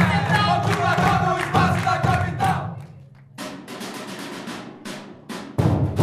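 Scrap percussion: drums made from plastic barrels and cans, beaten by hand and with sticks, under a group chanting a shouted refrain. About three seconds in the chant and the deep drumming drop out, leaving separate sharp strikes, and the deep barrel drumming comes back in full near the end.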